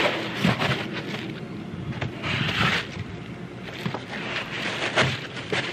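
Clear plastic packaging bag crinkling and rustling as it is handled, with scattered sharp crackles.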